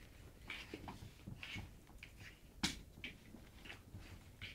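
A German Shepherd and a Shih Tzu tussling in play on a blanket: faint, scattered rustles and soft clicks, with one sharp knock about two and a half seconds in.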